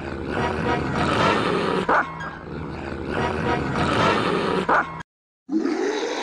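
Edited soundtrack of music mixed with dog-like animal sounds, which cuts out abruptly about five seconds in before a different sound starts half a second later.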